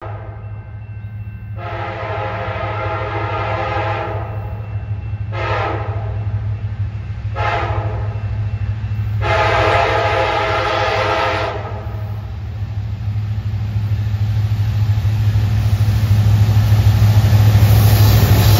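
Diesel freight locomotive horn sounding a long blast, two short blasts and another long blast. Under it runs the steady low rumble of the approaching CN diesel locomotives, which grows louder near the end as they draw close.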